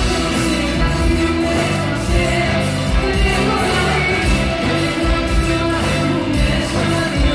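Live pop music with a singer over a band, with a steady beat.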